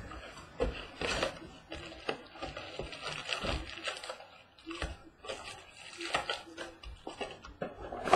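Cardboard box of trading cards and its packs being handled and opened: irregular rustling with light knocks and clicks.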